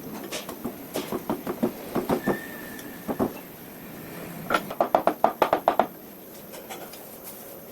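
A series of sharp clicks and knocks from hand work on a homemade wood planer: scattered knocks over the first couple of seconds, a pair after about three seconds, then a quick run of about ten clicks near the middle.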